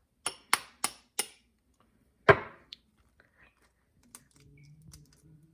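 Four quick sharp taps, then one louder knock with a short ring a second later, and a faint low hum near the end.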